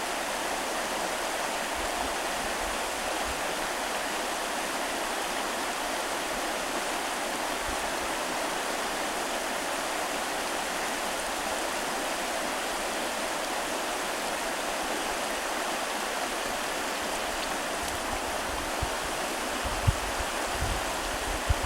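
Stream water rushing steadily, with a few low thumps near the end.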